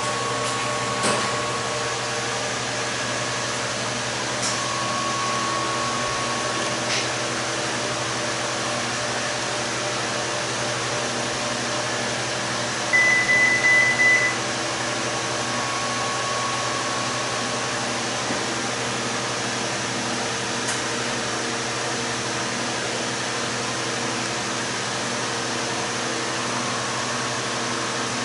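Steady machine hum with an even rushing noise, and a short run of about four high beeps about halfway through.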